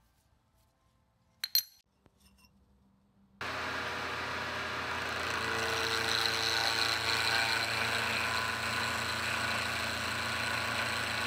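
A sharp metal clink about one and a half seconds in as the bar is tapped down onto the parallels in the milling vise. Then, a little after three seconds, a vertical milling machine starts up abruptly and runs steadily with its end mill cutting along an aluminium bar.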